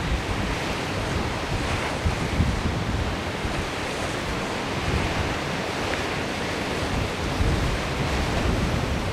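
Wind buffeting the microphone over the steady rushing of a choppy sea, with uneven low gusts throughout.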